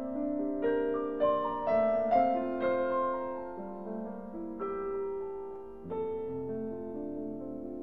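Background music: a slow, gentle solo piano piece, notes and chords struck about twice a second at first and left to ring, then more sparsely.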